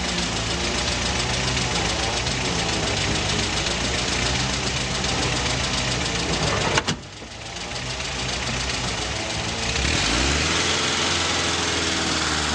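Small motorcycle engine running steadily while riding a rough dirt road. After a cut a little over halfway through, the steady rush of water pouring down a rocky waterfall.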